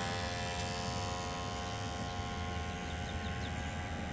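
Electric drive motor of a 1/8-scale wooden Sterling Models racing runabout R/C boat running under way, a steady whine over a low rumble.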